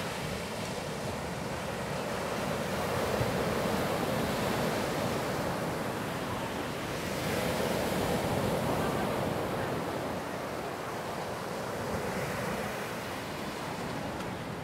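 Ocean surf: small waves breaking and washing up the sand in a steady rush that swells and falls back with each wave.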